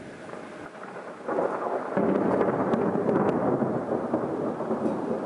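Thunder rumbling during a thunderstorm, with rain. The rumble is lower at first, jumps up sharply about a second in, swells again a moment later and stays loud to the end.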